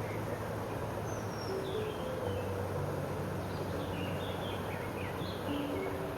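Stream running high in spring flood, a steady rush of white water, with small birds chirping now and then over it.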